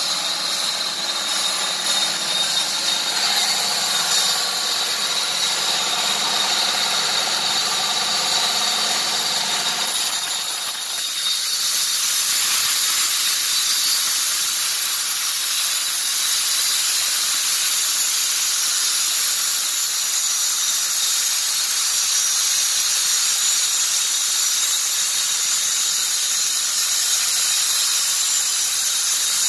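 Horizontal band sawmill running: a steady machine hum with several tones and a hiss, which changes about ten seconds in to a steady high hiss as the lower hum drops away.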